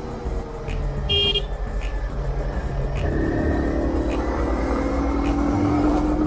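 Motorcycle engine running under way, with a short high horn beep about a second in; from about three seconds the engine pulls harder, its pitch climbing steadily as the revs rise.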